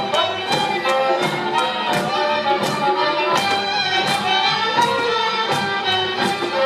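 Hungarian folk dance music led by violin, with a steady beat about one and a half times a second.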